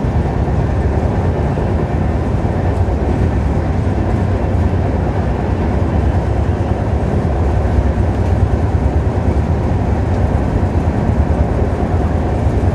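Running noise heard from inside an LHB passenger coach as the train accelerates through about 90 to 96 km/h: a loud, steady, heavy low rumble of wheels and bogies on the track.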